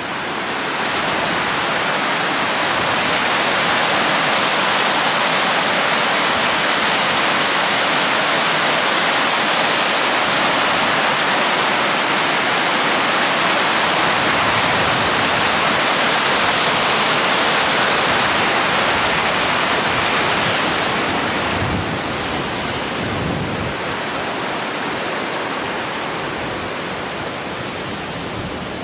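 Stream water cascading over rocks in a small waterfall: a steady rushing sound that grows fainter over the last several seconds.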